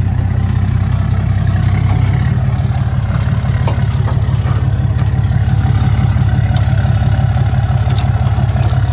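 Cummins diesel engine running steadily at low revs, heard close, with an even low pulse and a slight shift in pitch about two seconds in.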